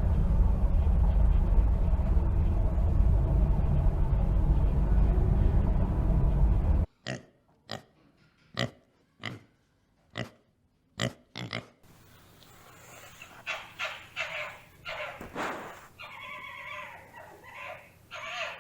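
A loud low rumble for about seven seconds cuts off, followed by a series of short animal calls about every half second and then a denser run of calls near the end.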